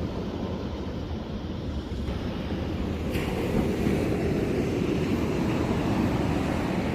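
Ocean surf washing on the shore with wind buffeting the microphone: a steady wash of noise that grows a little louder about three seconds in.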